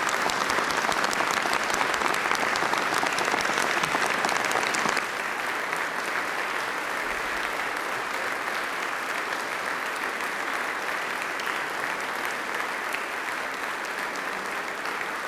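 Applause from a large group of people clapping, steady and sustained; it is loudest for the first five seconds, then settles a little lower.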